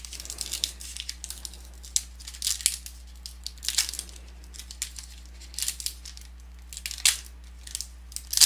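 Wrapper of a football trading-card pack crinkling and tearing as it is pried open, in irregular crackles; the pack is stuck together. A steady low hum runs underneath.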